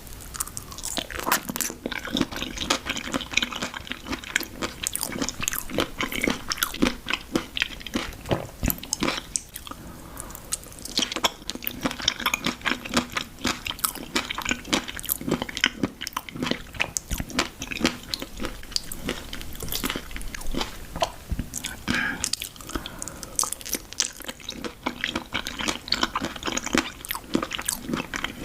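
Close-miked eating: a person biting into and chewing crunchy food, with a dense run of crisp crunches and crackles throughout.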